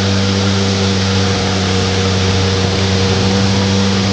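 A motor or engine running steadily at an unchanging speed, giving an even, loud hum.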